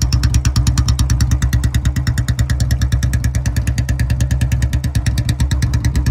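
Two Royal Enfield Bullet single-cylinder motorcycles idling together without revving, their exhaust beating out through C-bend pipes and short-bottle silencers in a steady, even thump.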